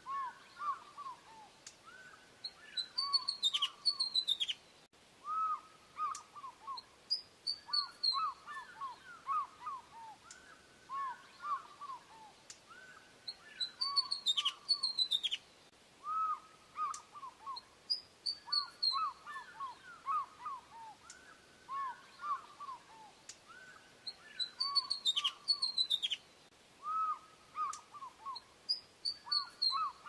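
Osprey calling: runs of short, arched whistled notes repeated throughout, broken every few seconds by higher, sharper descending whistles.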